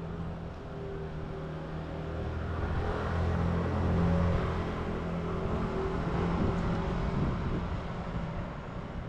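Steady low motor hum with a few fixed tones, swelling louder toward the middle and then easing off.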